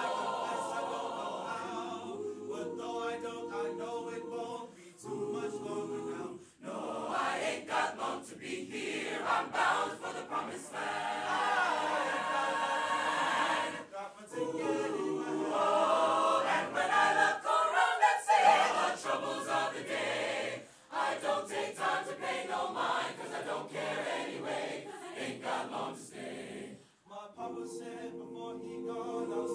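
Mixed choir singing a gospel spiritual a cappella, full-voiced and growing louder around the middle, with a few short breaks between phrases.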